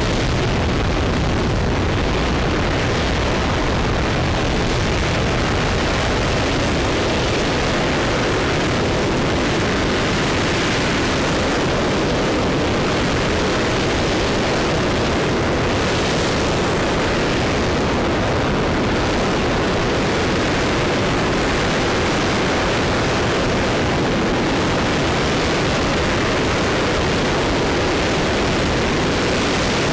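RS-25 liquid-hydrogen/liquid-oxygen rocket engine firing steadily in a hot-fire test: a continuous, unbroken rumble with a hiss, holding level throughout.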